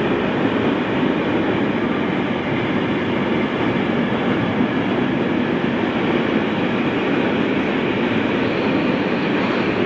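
Long container freight train passing on the adjacent track: a steady, loud rumble of the wagons' wheels running on the rails.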